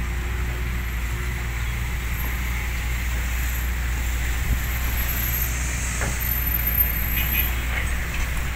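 Heavy diesel engines running steadily while a Hyundai excavator loads soil into a dump truck, with a couple of light knocks about four and a half and six seconds in.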